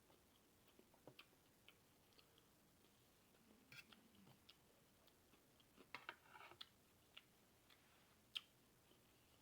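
Faint chewing of a person eating, heard as scattered soft mouth clicks and smacks, bunched together about four and six seconds in, with one sharper click near the end.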